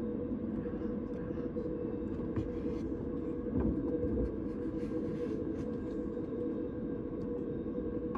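Steady running noise of a train, a constant drone with a few faint clicks and a slightly louder low knock about three and a half seconds in.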